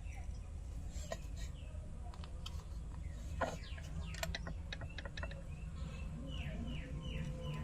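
Steady low hum with scattered light clicks, and near the end a run of four short falling chirps, bird calls in the background.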